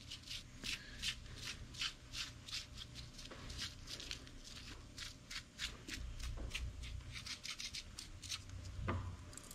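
Faint, irregular light clicks and rubbing of a steel Torrington thrust bearing and its race being handled and turned in the fingers.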